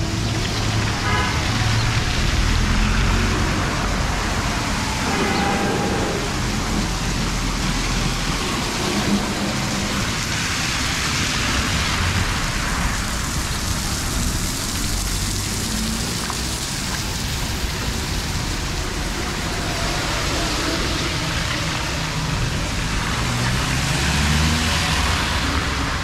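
Heavy rain falling steadily on a wet street, with a low rumble of motor vehicles on the road that comes and goes.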